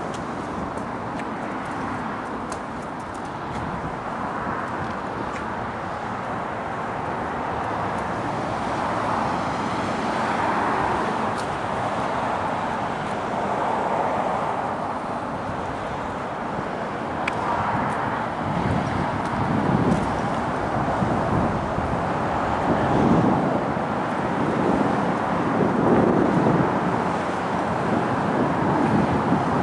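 Outdoor background noise of road traffic, a steady rushing haze with some louder low rumbles in the second half.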